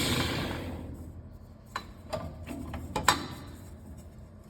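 Hardinge HSL-59 precision speed lathe coasting down after being switched off, its running sound fading away over the first second or so. Then a series of light clicks and knocks, about six, the loudest about three seconds in, from hands working on the machine.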